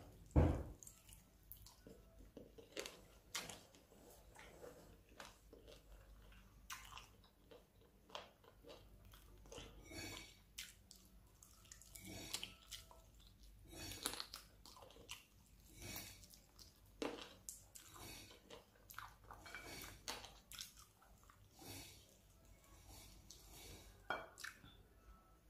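A person biting and chewing chicken feet close to the microphone: irregular small clicks and smacks of the mouth and food, with the loudest bite right at the start.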